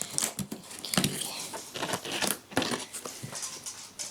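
Packing tape being peeled and pulled on a cardboard parcel: irregular sticky crackling and tearing with sharp clicks, the sharpest about a second in.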